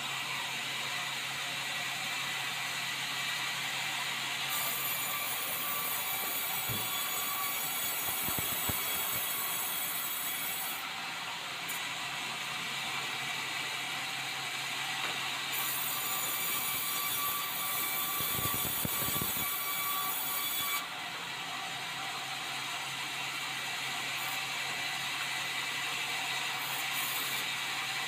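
A large vertical band sawmill running and cutting a meranti log, a steady mechanical saw noise. Its highest hiss drops out and comes back a few times, and there are a few dull low knocks.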